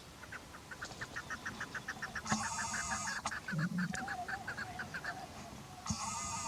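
Chukar partridge calling: a rapid, even series of short clucking notes, about seven a second, with two louder, harsher bursts about two and six seconds in.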